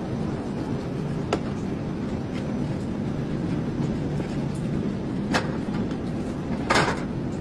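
Steady low rumble of workshop machinery with three sharp knocks: one about a second in, one past five seconds, and a louder, slightly longer one near the end.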